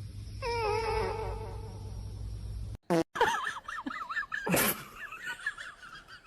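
Cat giving a long, wavering yowl starting about half a second in. After a sudden cut comes a run of short, high, warbling animal calls, with a brief rush of noise in the middle.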